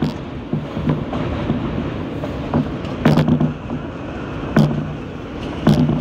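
New York City Subway M train running at speed on elevated track, heard from inside the car: a steady rumble with several sharp clacks of the wheels over the track, a cluster about three seconds in and two more near the end.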